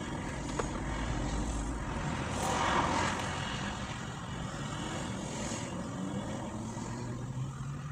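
Steady low vehicle rumble, with a swell of louder noise that rises and fades about two and a half to three seconds in.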